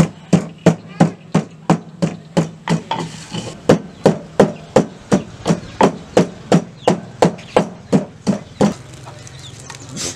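Wooden pestle pounding herbs in a mortar, about three sharp knocks a second in an even rhythm, stopping near the end.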